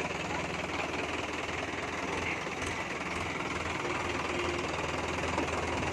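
Tractor's diesel engine idling steadily.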